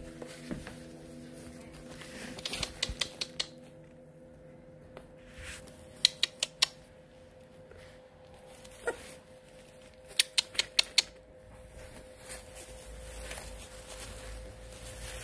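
Young puppies scrambling in shredded-paper bedding over a plastic floor: three short bursts of quick sharp clicks and scratches, over a steady faint hum, with one short squeak a little before the last burst.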